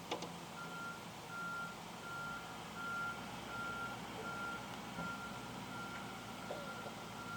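A vehicle's reversing alarm beeping steadily, one even tone repeated about one and a half times a second. A single sharp tap comes just before the beeping starts.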